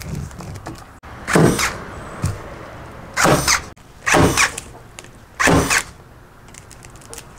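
Electric T50 staple gun firing staples through woven lauhala matting into the ceiling: four sharp shots, spaced one to two seconds apart.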